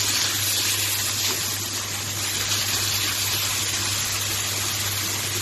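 Chopped tomatoes, green peppers and spices frying in oil in a pan, a steady sizzling hiss, with a low steady hum underneath.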